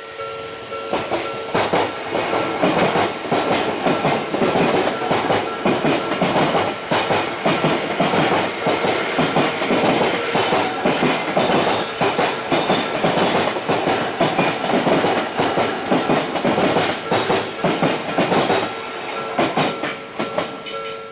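Odakyu 30000 series EXE limited express passing over a level crossing, its wheels clattering over rail joints in a rapid run of clacks for about seventeen seconds. The crossing's warning bell rings steadily under it, heard plainly at the start and again near the end as the train clears.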